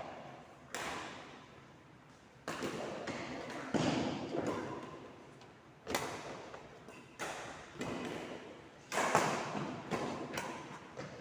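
A rally of ball hits: sharp strikes about one to two seconds apart, each ringing on in a large echoing hall.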